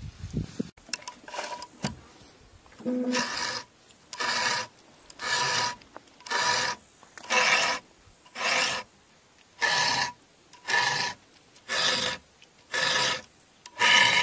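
A file drawn across the cutters of a Stihl chainsaw's chain, sharpening it: even rasping strokes at about one a second, each with a faint metallic ring. A few lighter scrapes come before the steady strokes begin, about three seconds in.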